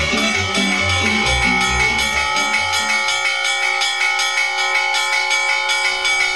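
Church bells ringing, many steady tones that hold throughout. Rhythmic low-pitched music plays underneath and cuts off abruptly about halfway through.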